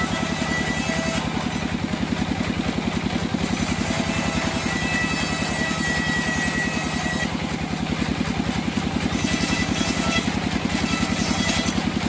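Engine-driven homemade bandsaw sawmill running steadily with a fast even engine pulse, its band blade sawing lengthwise through a hardwood log. A thin high whine comes and goes twice.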